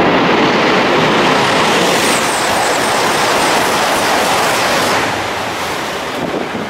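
Tohoku Shinkansen E5-series train passing at high speed at a tunnel portal: a loud, steady rushing noise that eases off in the last second or two.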